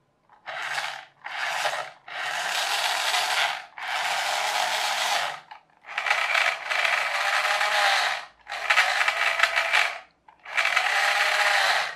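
Small electric motors and plastic gearboxes of a wired remote-control toy car whirring in about seven short bursts, each a second or so long with brief gaps, as forwards, backwards, left and right are tried in turn.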